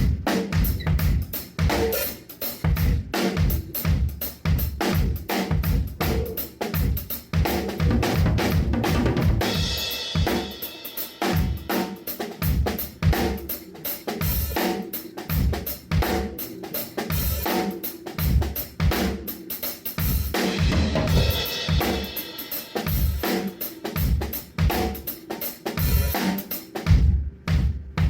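Drum kit played in a steady, busy groove: bass drum and snare hits in quick succession. There are two stretches of brighter, sustained wash, about a third of the way in and again about three quarters through.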